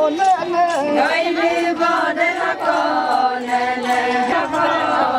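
A group of voices chanting together, several lines held and overlapping with slowly wavering pitch.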